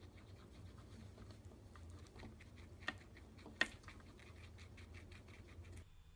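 Guinea pigs chewing carrot pieces: faint crunching and clicking, with two sharper clicks about three seconds in.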